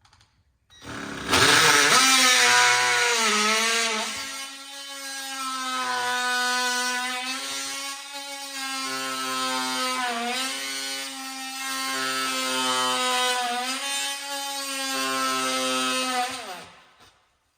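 A power saw running and cutting for about fifteen seconds, its pitch sagging several times as it bogs under load.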